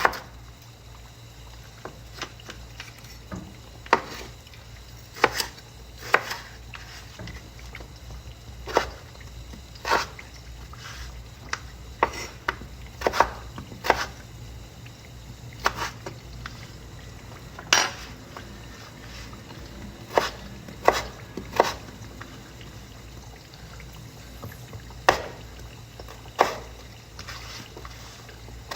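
Kitchen clatter: utensils and dishes knocking, with irregular sharp knocks every second or two over a steady low hum.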